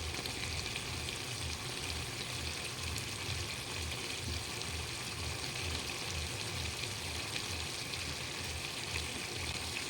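Chicken pieces sizzling steadily in hot oil in a pan as they are slow-fried into a kosha, the meat releasing its oil.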